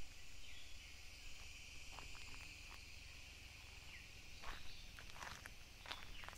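Steady high-pitched drone of insects, with irregular crunching footsteps through dry leaf litter.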